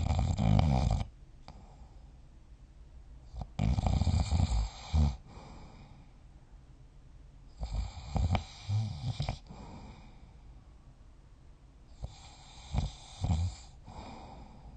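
A person snoring in deep sleep: four rattling snores with a hissing breath, each about a second long and coming roughly every four seconds, with quiet breathing between them.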